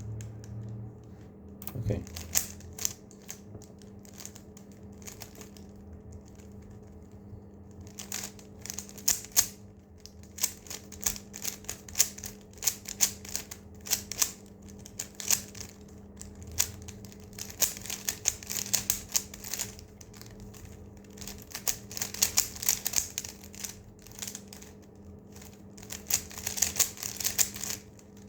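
Rubik's Cube being solved at speed: its plastic layers turning in quick runs of clicks and clacks, sparse at first and then fast and continuous about a third of the way in.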